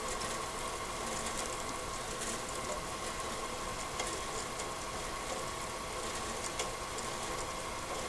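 Harbor Freight metal-cutting bandsaw running, its blade feeding slowly down through mild steel with coolant flowing. A steady hum with a constant high tone, and faint ticks now and then.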